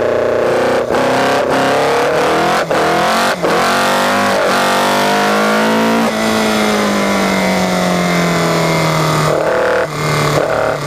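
Caterham R500's four-cylinder engine under hard acceleration, the revs climbing and cutting off briefly at several quick gear changes in the first few seconds, then running on with its pitch slowly falling as the car slows for a bend, with one more short break near the end.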